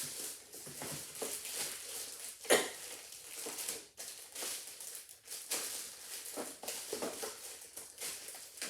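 Plastic mailer bag rustling and crinkling as it is opened and handled, with one louder sharp sound about two and a half seconds in.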